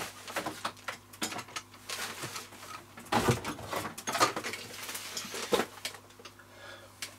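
Cobra 29 LX EU CB radio's speaker on receive, giving irregular crackle and hiss in uneven bursts over a steady low hum, while the mobile station is heard without speech.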